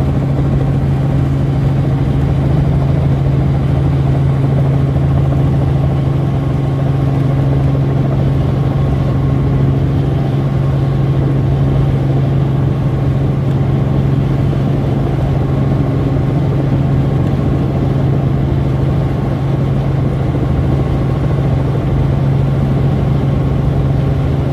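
Light helicopter's engine and main rotor running steadily, heard from inside the cabin as a loud, even drone with a strong low hum.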